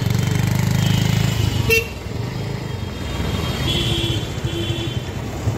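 Street traffic: a motor vehicle's engine running close by for about the first second and a half, then two short vehicle horn beeps near the end, with a sharp click in between.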